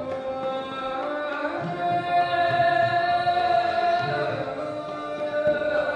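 Indian classical music: a melodic line with long held notes, over low drum strokes.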